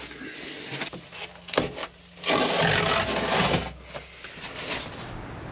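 Rubbing and scraping against fiberglass in a cramped boat stern, with a few sharp knocks early on. The loudest scrape starts about two seconds in and lasts about a second and a half.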